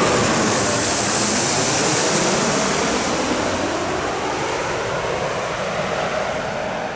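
Gulfstream G550 business jet's twin turbofans roaring as it passes close on its landing approach, with a hiss strongest about a second in, then slowly fading away.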